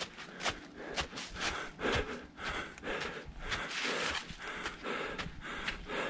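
A runner's footsteps on a leaf-covered forest trail, about two a second, with his breathing between the steps.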